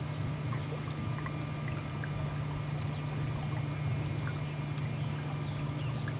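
Small boat's motor running steadily: a constant low hum with a faint high whine, with water trickling and gurgling along the hull.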